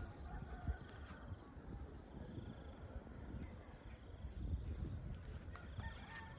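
Insects trilling steadily: a continuous high-pitched trill with a regular pulsed chirp at a lower pitch repeating beneath it. A low rumble runs underneath.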